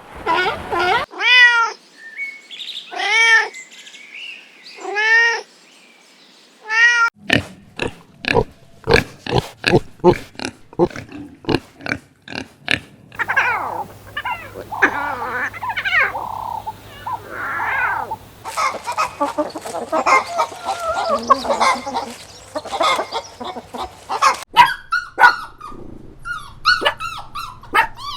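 Animal calls from a series of farm animal clips: five pitched, arching calls in the first few seconds, then a fast run of sharp clicks or knocks, then a long stretch of rough, noisy calls.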